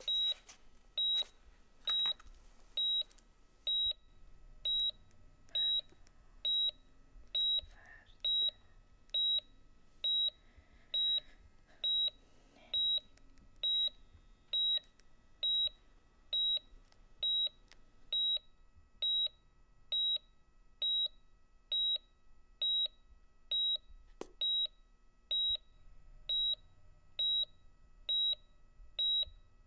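Patient heart monitor beeping steadily, one short high beep about once a second, each beep marking a heartbeat.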